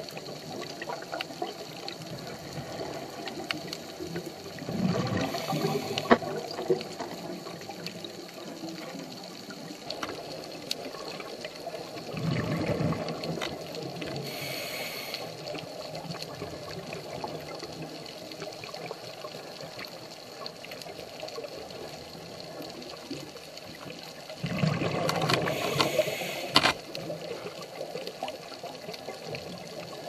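Underwater sound of a scuba diver's regulator: three bursts of exhaled bubbles, each about two seconds long and several seconds apart, over a steady underwater hiss with faint crackling.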